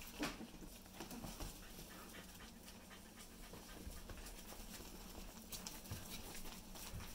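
Four-week-old corgi puppies scrambling about on towels and a pad in a wire crate: faint scuffling and rustling with light knocks and paw ticks, loudest just after the start.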